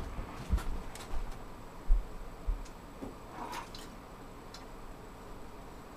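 Faint handling noises: a few light knocks and clicks, mostly in the first three seconds, then only soft room tone.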